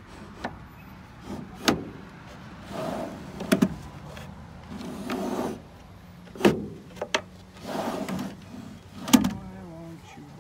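Plywood drawer pushed and pulled along metal ball-bearing drawer slides: several rolling, rushing runs broken by about five sharp knocks as the wooden box bumps to a stop. It is a trial of the freshly mounted slides.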